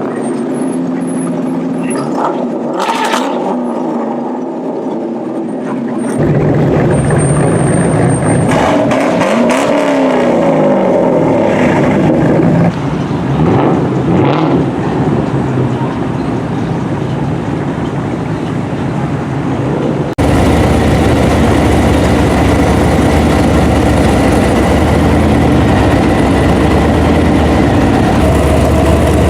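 Performance car engines at a car meet: engines revving, rising and falling in pitch. After an abrupt cut about twenty seconds in, a loud steady engine rumble.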